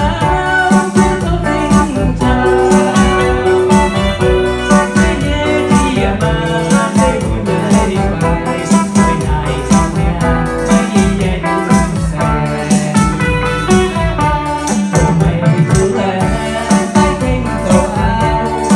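A live dance band playing music with a steady beat.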